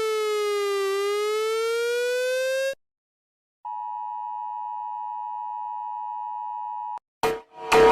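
Electronic emergency-alert siren with a buzzy tone sliding down and back up, cutting off suddenly. After a short silence comes a steady electronic alert tone lasting about three seconds, then loud rhythmic blasts start near the end.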